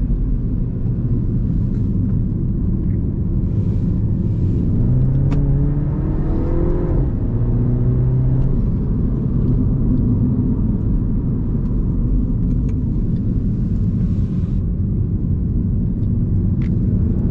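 Mini Cooper S F56's turbocharged four-cylinder engine on its stock exhaust, heard from on board while driving, under steady road and wind noise. The revs climb about a third of the way in and again near the end, between stretches of steady cruising.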